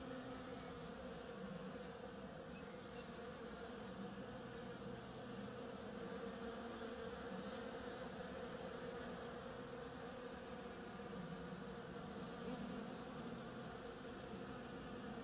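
Bees buzzing as they forage on flowering oriental creeper, a steady overlapping hum that swells slightly now and then.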